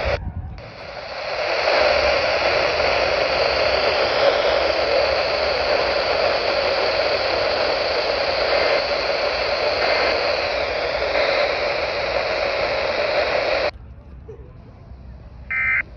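Weather radio receiver hissing with steady static for about thirteen seconds between test broadcasts, cutting off suddenly near the end, followed by a short beep just before the end.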